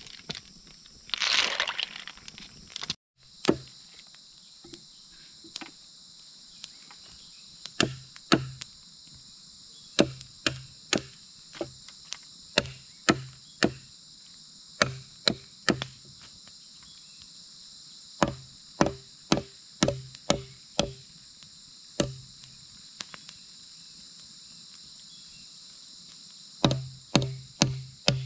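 Machete chopping through bamboo on a log: sharp chops, often in quick runs of two to five strokes. Under the chops runs a steady high buzz of forest insects. A short rustling noise comes before the chopping starts.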